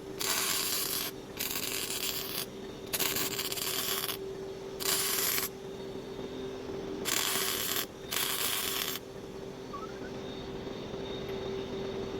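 Spray paint from an aerosol can, in short hissing bursts: about six, each under a second, in the first nine seconds. A steady hum runs underneath.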